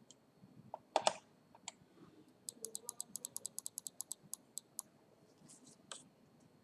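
Screwdriver and small screws on a laptop's plastic bottom case: a sharp clatter about a second in, then a quick, even run of about twenty light clicks, and one more click near the end.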